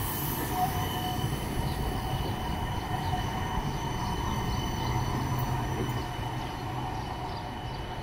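Cincinnati Bell Connector streetcar, a CAF Urbos 3 low-floor tram, rolling slowly past close by on its rails. It makes a low rumble with a few steady high-pitched whining tones over it, and eases off slightly near the end as it moves away.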